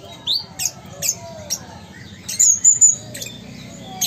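Caged sunbird (kolibri ninja) singing: a quick series of thin, high-pitched chirps and short sweeping notes, with a brief held high note a little past halfway.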